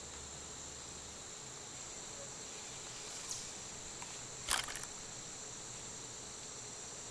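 Steady, high-pitched chorus of crickets and other insects. About four and a half seconds in there is a sharp click followed by a few quick smaller clicks.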